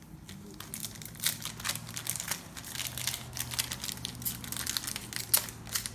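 Plastic and foil trading-card pack wrappers crinkling and tearing as packs are opened by hand, in a run of irregular crackles that picks up about a second in.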